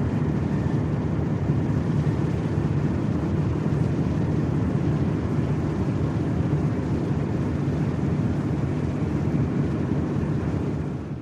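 Fishing-port ambience: a steady low rumble, fading out at the very end.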